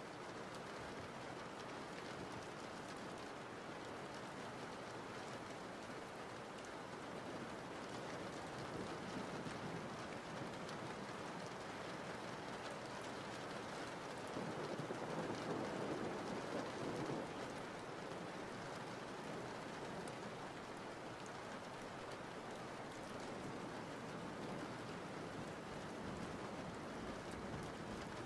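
Steady, even hiss like falling rain, swelling a little about halfway through.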